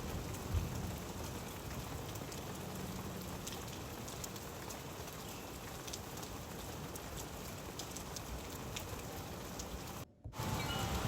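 Steady rain falling, with scattered drops tapping on a surface. The sound cuts out briefly near the end.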